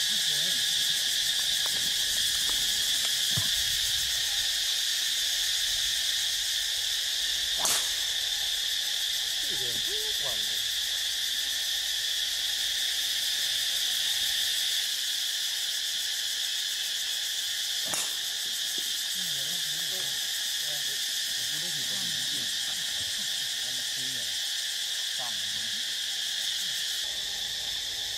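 A steady chorus of insects, an even, shrill drone that holds without a break. Two sharp clicks cut through it, about eight and eighteen seconds in.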